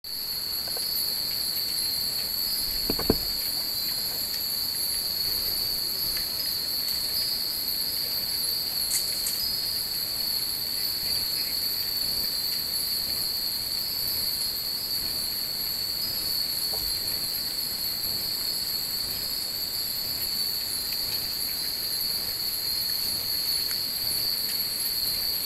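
A steady, shrill chorus of night insects holding two high continuous pitches, with a few faint tinkles from Japanese wind chimes (furin). A single short knock about three seconds in.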